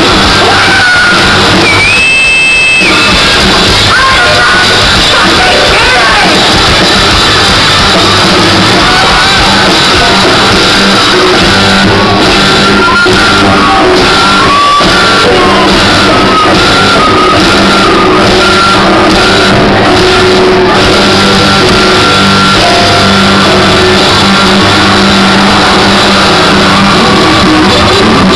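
Live rock band playing loud, with electric guitars, bass and drums.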